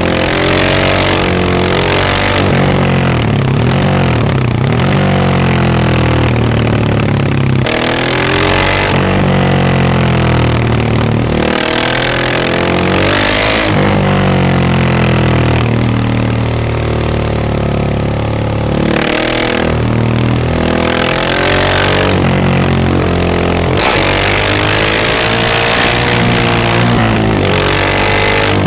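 KTM 690 SMC R supermoto's single-cylinder engine on a Stage 2 tune, ridden hard: revs climbing and dropping again and again, with short rushes of noise as the throttle opens. It is very loud.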